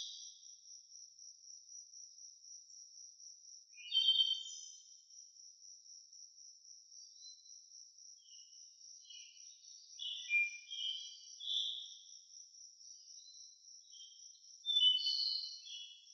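Insects trilling steadily in a high, rapidly pulsing drone, with short high chirping phrases over it about four seconds in, again around ten to twelve seconds, and loudest near the end.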